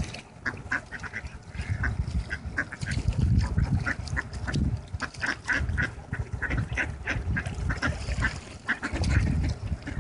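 A flock of ducks, mostly mallards, quacking in short calls one after another. Bursts of low rumble come and go in the middle and near the end.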